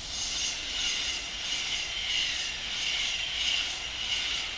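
LNER Azuma high-speed train passing through the station at speed: a loud, steady rushing that swells in even pulses about every two-thirds of a second.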